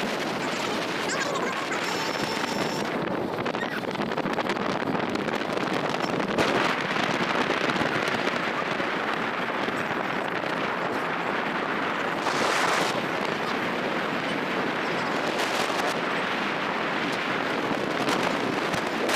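Wind buffeting the microphone while riding on an open vehicle along a road, over the vehicle's running and road noise, with a couple of brief stronger gusts.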